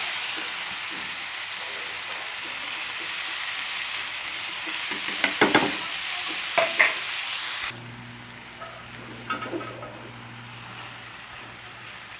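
Okra masala frying in a pan, a steady sizzle, with a utensil clinking against the pan a few times partway through. About two-thirds in, the sizzle cuts off abruptly, leaving a quieter low hum and a few light clicks.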